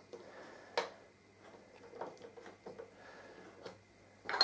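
Faint plastic clicks and knocks from the small built-in turntable of a Sanyo Support KC-66 radio-cassette being handled as its spindle adapter is lifted off and its tonearm swung out. There is a sharp click a little under a second in and a louder one near the end.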